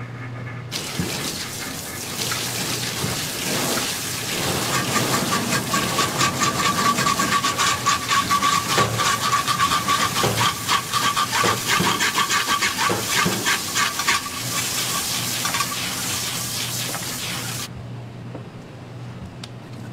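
Water spraying hard into a stainless-steel sink over a whole salmon, splashing as gloved hands rub the fish clean; a steady high tone runs through the middle of the spray. The water cuts off suddenly near the end, leaving a low steady hum.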